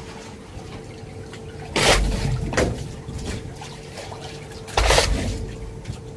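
Water splashing in three sudden bursts, about two seconds in, just after, and again near five seconds, over a faint steady hum.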